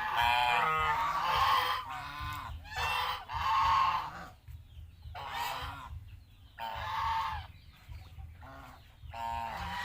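Domestic geese honking, a run of loud calls one after another every second or so.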